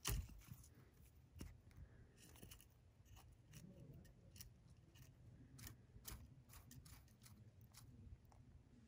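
Green tree monitor biting and crunching a feeder insect: faint, irregular crisp clicks scattered through, with one louder knock right at the start.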